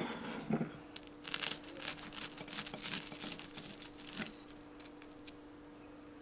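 Knife and fork cutting through the crisp breadcrumb coating of an air-fried chicken tender: a run of crackling crunches lasting about three seconds, after a single knock at the start.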